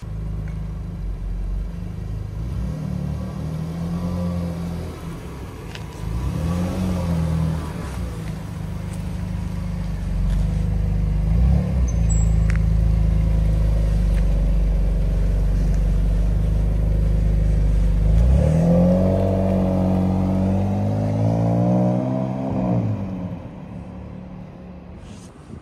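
BMW M2 Competition's twin-turbo straight-six engine running as the car drives out and past, the revs rising and falling several times with the strongest run-up about eighteen seconds in, then fading as the car drives away near the end.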